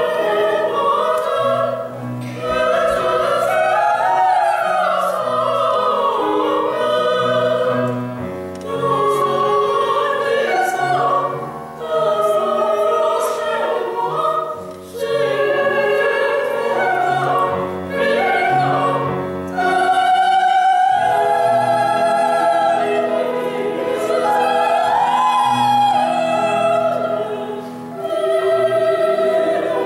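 Operatic singing in bel canto style: classically trained voices in phrases of held notes with vibrato, broken by short breaths, over a low accompaniment.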